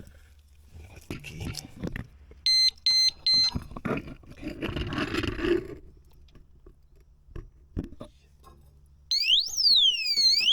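Motion alarm of a brake disc lock on an e-bike being set off by movement. Three short high beeps sound as the warning, with knocks and handling noise around them. Near the end a loud siren starts, sweeping up and down in pitch.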